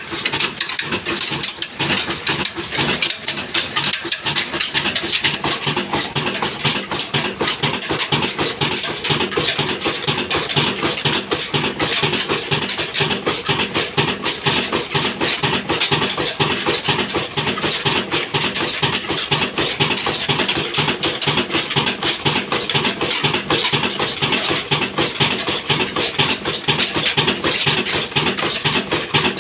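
Old horizontal single-cylinder diesel engine, a desi 'black engine', running at a steady speed with a fast, even clatter. The sound gets louder and brighter about five seconds in.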